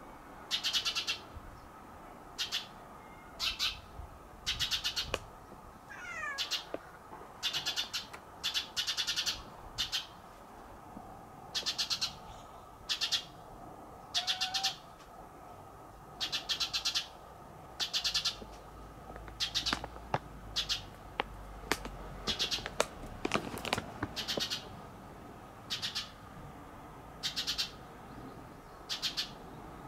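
A bird calling over and over: short, raspy, high-pitched calls about once a second, with a single falling whistle about six seconds in.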